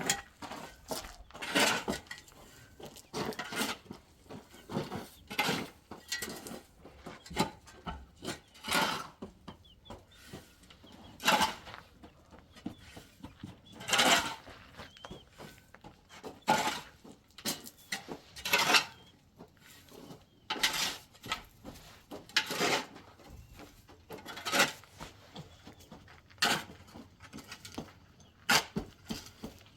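Repeated scraping and clinking strokes of a metal tool, irregular, about one every one to two seconds.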